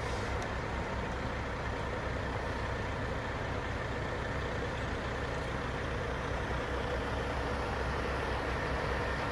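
Heavy diesel truck engine running steadily at low speed, with a faint whine over the engine's rumble.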